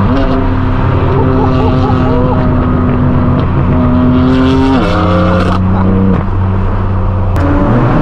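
Straight-piped BMW M4 F82's twin-turbo inline-six exhaust heard from inside the cabin, droning steadily at cruise. Its pitch climbs a little, drops sharply about five seconds in, then changes again near the end.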